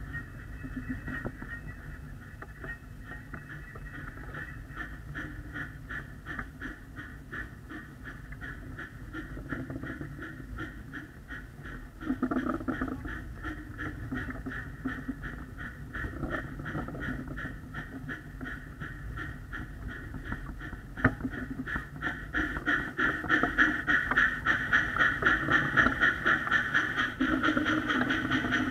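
Backyard ride-on miniature train running along its track, making a rapid, even rhythmic clatter that grows louder over the last several seconds, with a knock about twelve seconds in and a sharp click about twenty-one seconds in.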